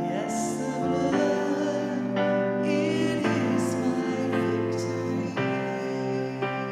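Gospel worship music: sustained keyboard chords that change about once a second, with singing faintly under them.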